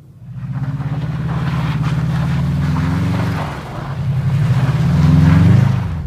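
Subaru Impreza's turbocharged flat-four engine revving hard under acceleration on snow. The revs climb, dip briefly about three and a half seconds in, then climb again to their loudest near the end.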